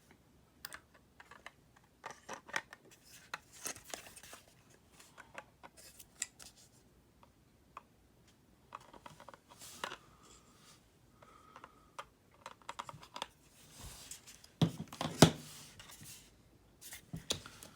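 Hands handling laptop drives and small hard parts: scattered small clicks, scrapes and rubbing, with a few louder knocks about fifteen seconds in.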